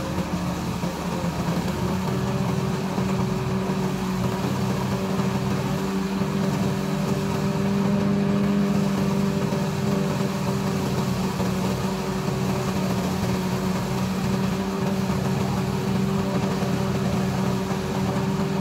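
Two-wheel hand tractor's engine running at a steady speed, belt-driving a corn thresher that shells freshly harvested corn, with a steady mechanical hum.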